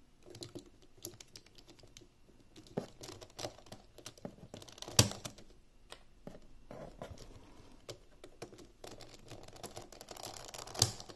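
Hard plastic pieces of a stickerless 55mm Dayan ZhanChi speedcube clicking and knocking as they are handled and pressed back into the partly disassembled cube. Two sharp snaps stand out, about five seconds in and near the end.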